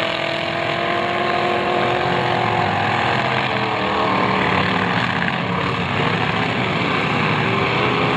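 Demolition derby car engines running hard together, one revving up and holding at high revs over a loud, steady engine din.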